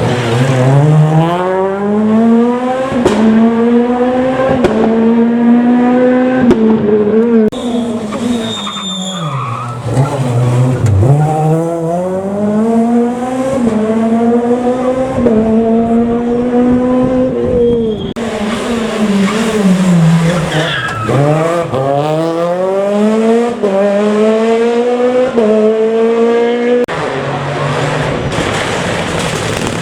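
Rally cars on a gravel special stage, engines revving hard and climbing through the gears, with the pitch dropping low as they slow for corners, three times in all, then accelerating away again.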